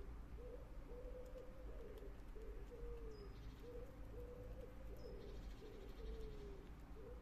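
A pigeon cooing in a long, unbroken series of short notes, about two a second, some of them sliding down in pitch. Faint crackling from the squirrel gnawing the walnut comes through about three seconds in and again from about five seconds in.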